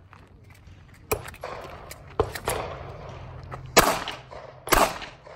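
Glock 43 9mm pistol firing single shots, about four of them spaced a second or more apart.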